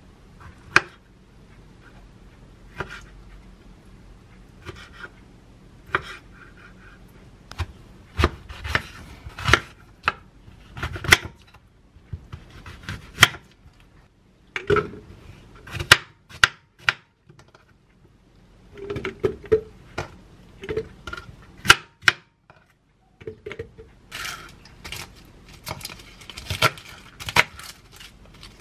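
Kitchen knife cutting fresh figs, an apple and kale leaves on a wooden cutting board: irregular sharp knocks of the blade striking the board, with quieter gaps between cuts and quicker chopping near the end.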